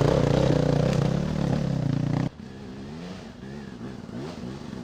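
Dirt bike engine revving hard, climbing a hill. About two seconds in it drops away suddenly to a fainter motorcycle engine revving up and down.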